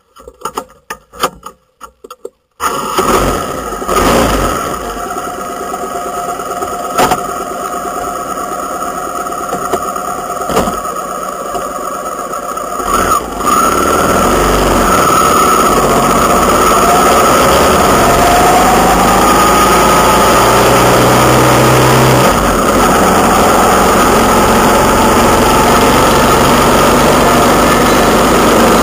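A few scattered clicks, then a vehicle engine running with rushing road and wind noise, heard from a camera mounted on the moving vehicle. About thirteen seconds in the noise grows louder and stays steady, with the engine's pitch sliding up and down.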